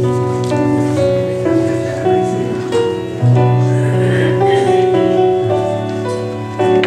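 Slow, gentle keyboard music in held chords that change every second or so: offertory music played while the collection plate is passed.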